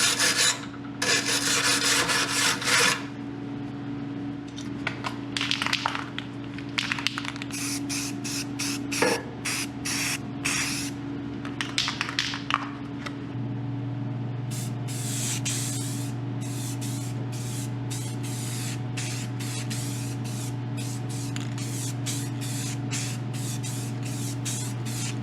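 Aerosol spray paint can hissing in repeated bursts, longer sprays at first and then many short quick ones, over a steady low hum.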